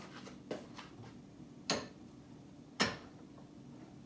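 Gas stove burner igniter clicking: separate sharp ticks about once a second, the two loudest near the middle.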